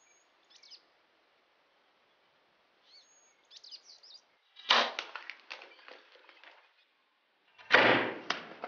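A compound bow shot in the field: a sudden sharp snap about halfway in and a louder one with a low thump near the end, each trailing off in a short clatter. Birds chirp briefly before.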